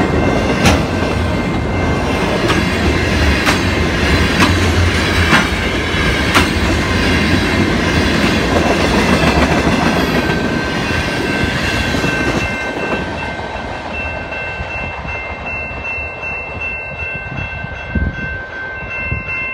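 Freight cars rolling past a grade crossing, wheels clacking over the rail joints with a heavy low rumble, while the crossing's warning bell rings steadily. The rumble thins out about two-thirds of the way through as the train moves off.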